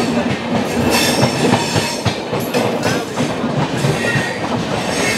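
Two passenger trains passing each other on adjacent tracks: a steady rumble of the running coaches with wheels clattering over rail joints. The passing train is the 12059 Kota–Hazrat Nizamuddin train.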